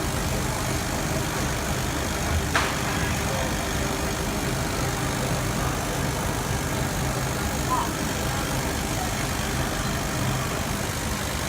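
SEKIRUS P0301M-1610 CO2 laser cutter running while cutting acrylic: a steady machine hum and hiss, with a brief click about two and a half seconds in.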